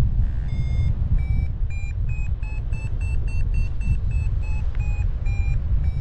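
Paraglider's variometer beeping in lift: short beeps about three a second whose pitch rises through the first few seconds and then falls back as the climb strengthens and eases. Under it, steady wind rush on the microphone.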